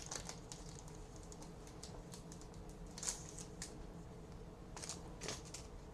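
Faint, scattered light clicks and ticks of trading cards being handled and flipped through, with sharper clicks about three seconds and five seconds in.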